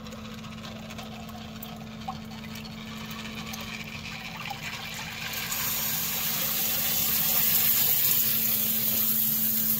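Submersible sump pump running in its basin during a float-switch test, a steady motor hum under the sound of water being pumped out. The rushing water grows much louder about halfway through.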